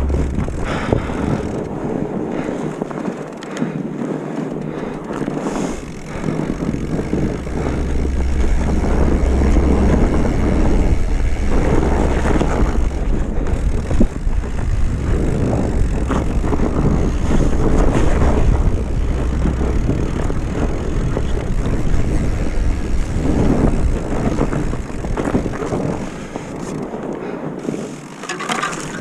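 Mountain bike riding down a dirt trail: wind rushing over the microphone, with tyre noise and rattle over rough ground. The low wind rumble comes up about six seconds in and eases near the end.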